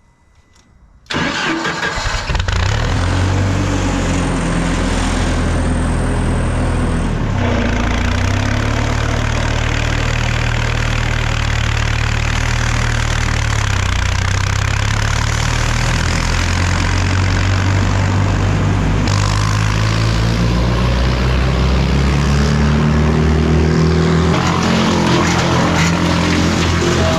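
A large engine starts up about a second in and keeps running loudly, its pitch dipping and rising a few times.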